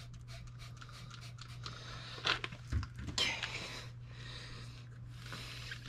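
A rubber handlebar grip being forced onto a mini bike handlebar slicked with Windex. It makes small clicks and taps, then several short bursts of hissing and squishing as the grip slides and air escapes.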